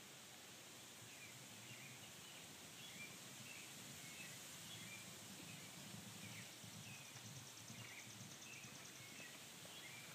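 Faint outdoor ambience with scattered short bird chirps, and a rapid high trill starting about six and a half seconds in and lasting about three seconds.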